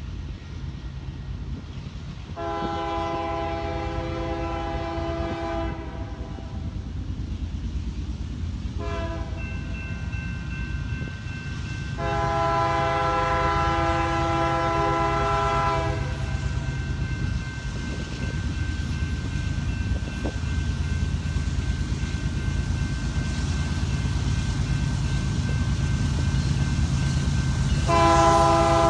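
Three-chime Nathan K3L air horn on a Union Pacific GE ES44AC locomotive, sounding a long blast, a short one, another long one, then a long one starting near the end. Under the horn runs the steady low rumble of the passing diesel freight train.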